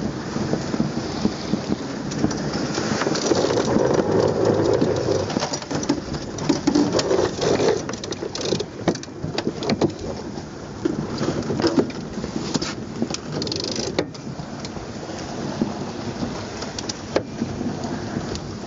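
Wind buffeting the microphone and water rushing along a heeled sailboat's hull during a tack, louder about three to five seconds in. Scattered sharp clicks and knocks come from the winch and rigging as the jib sheet is hauled in.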